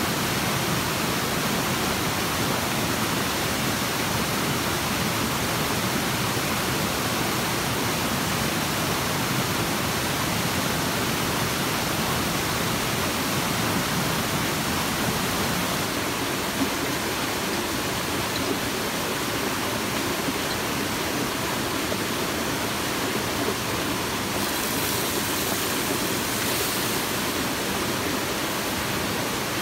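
Small waterfall and stream, water rushing steadily over the rocks. A brighter, higher hiss swells briefly a few seconds before the end.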